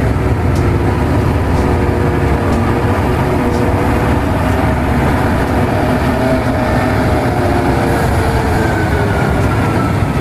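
Caterpillar 785C mining haul trucks' V12 diesel engines running as the trucks drive past in a line, a loud, steady, deep rumble with a faint whine that slowly drops in pitch.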